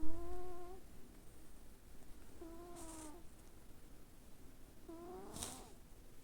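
Sleeping house cat breathing with a whistling, snore-like tone on each breath, three times about two and a half seconds apart, each with a short hiss of air. The owner wonders whether this is snoring or asthma. A low bump sounds at the very start.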